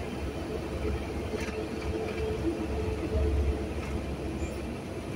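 Engine and tyre noise heard from inside a moving vehicle on a wet road: a steady low rumble with a faint hum.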